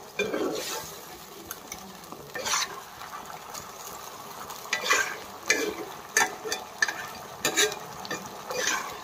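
A spatula stirring mushroom masala in a nonstick kadai, scraping and knocking against the pan about once a second over the sizzle of the frying gravy; the scrapes come thickest around the middle.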